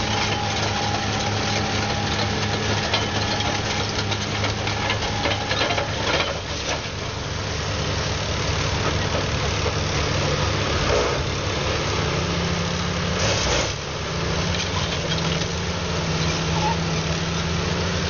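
Caterpillar crawler bulldozer's diesel engine running under load, with the clank of its steel tracks and rock crunching beneath them as it works down a rubble slope. The engine note shifts about twelve seconds in.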